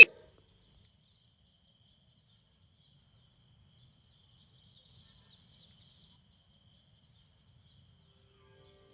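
A loud high whistling tone cuts off abruptly at the start, leaving faint insect chirping, about two evenly spaced chirps a second.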